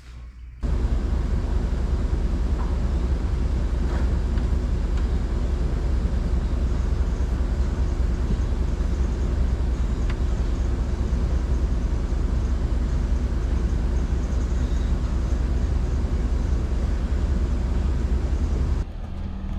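Steady, loud low rumble of a vehicle on the move with heavy road or wind noise, starting abruptly and cutting off abruptly shortly before the end.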